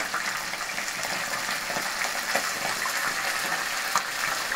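Fish frying in hot oil: a steady sizzling hiss with small scattered crackles.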